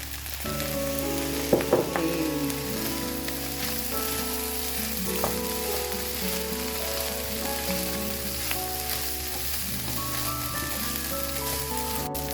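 Fried rice with chicken and vegetables sizzling in a frying pan as it is stirred, just after soy sauce is added, with a couple of sharp knocks about one and a half seconds in. Instrumental background music plays along.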